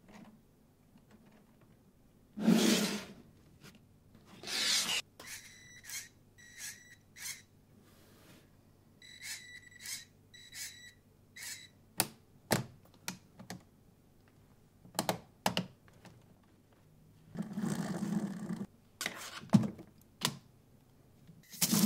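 Lego Technic parts clicking and tapping as they are fitted, with a small Lego servo motor whirring in about nine short bursts as it swings a pneumatic valve back and forth. A few louder short rushing noises break in, and just before the end the compressed-air Lego engine starts running steadily.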